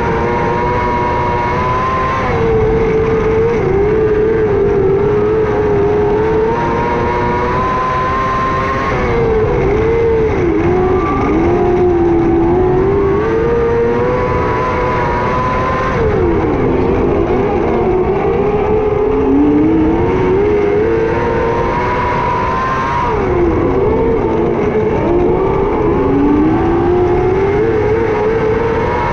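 600cc micro sprint car engine running hard at racing speed. Its pitch drops as the throttle comes off for each turn and climbs again down the straights, in a repeating pattern about every seven seconds.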